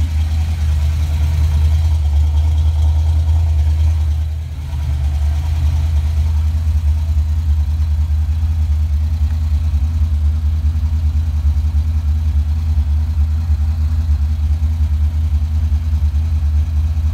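Fox Body Mustang's 302 (5.0 L) small-block Ford V8 idling steadily at about 1,300 rpm. The idle is set high for tuning on a newly fitted Holley Terminator X ECU, with the engine not yet warmed up. The sound drops briefly about four and a half seconds in.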